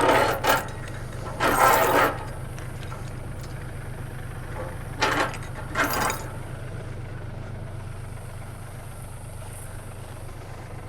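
Farm tractor engine idling steadily, with a few short, louder noises over it in the first six seconds.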